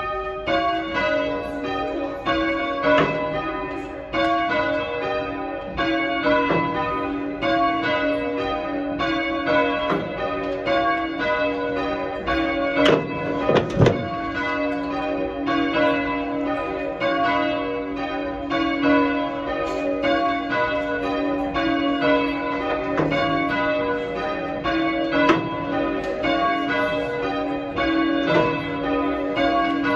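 A ring of three church bells, the tenor 6-0-6 in B, rung full-circle and striking in steady turn, heard from the ringing chamber below. Near the middle there is one loud thump as a bell rope flops out of line.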